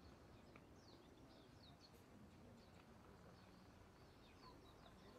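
Near silence: faint outdoor background with distant small birds chirping, short high falling notes several times a second.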